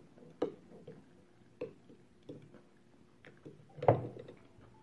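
A spoon clicking and scraping against a glass of pasta as food is scooped out: about six short clicks spread over the few seconds, the loudest near the end.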